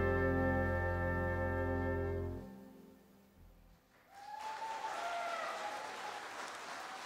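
A wind band's closing chord, held for about two and a half seconds and then released. After a second of quiet, audience applause breaks out about four seconds in.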